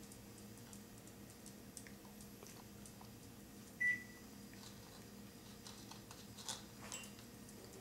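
A single short electronic beep about four seconds in, over a low steady hum and scattered faint clicks.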